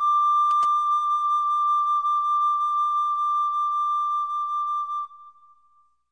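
Flute holding one long, steady high note of a hymn tune; the note stops about five seconds in and fades out quickly. Two faint clicks come about half a second in.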